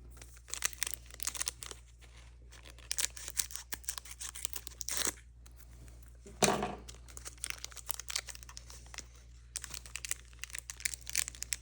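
Foil wrapper of a Pokémon trading-card booster pack crinkling and tearing in irregular crackles as it is worked open, with one louder crackle a little past halfway.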